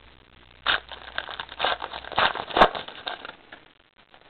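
Trading cards being handled and shuffled, with irregular crackling rustles and light clicks of card stock from about a second in, dying away near the end.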